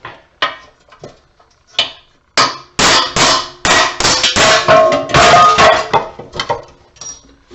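Hammer blows on metal scrap: a few light knocks, then from about two and a half seconds in a quick run of hard, ringing metal clangs, about three a second, that die away near the end.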